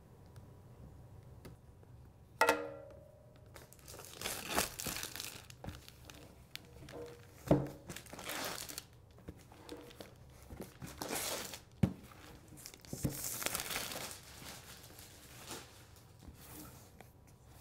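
Tape and clear plastic film being cut, peeled and torn off a cardboard box, in repeated spells of crinkling and rustling. A sharp snap comes about two and a half seconds in, and a few light knocks follow later.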